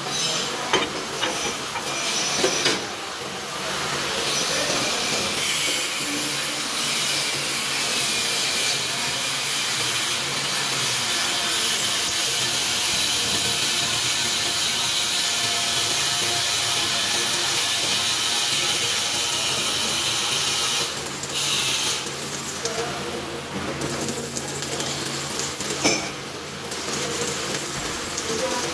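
Electric arc welding: the welding arc crackles and hisses steadily as a bead is run. It breaks off briefly about three seconds in and again around twenty-one seconds, with a few sharp snaps.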